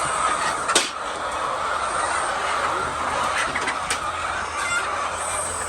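Many hens clucking together in a steady din, with two sharp clicks, one about a second in and one near four seconds.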